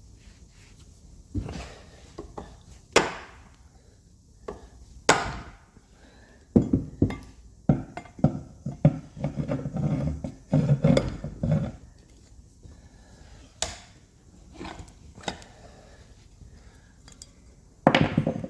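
Metal heel bar (pry bar) knocking and scraping against a gearbox driveshaft oil seal as it is levered out of its housing: a string of sharp knocks with a busier clatter in the middle and a loud knock near the end.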